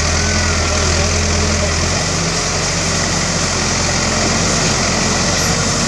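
Diesel engine of a JCB backhoe loader running steadily, its low note dropping a little about two seconds in.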